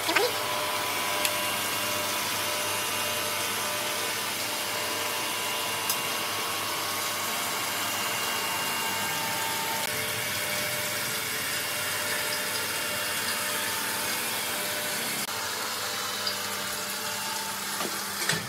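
Water-cooled stone edge-cutting machine running steadily, its motor-driven blade cutting along the edge of a clamped stone slab under a water spray: an even noise with a faint whine.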